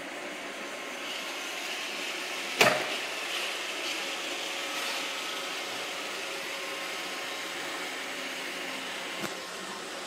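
iRobot Roomba 650 robot vacuum running steadily with its motors and brushes going. There is one sharp knock about two and a half seconds in and a lighter click near the end.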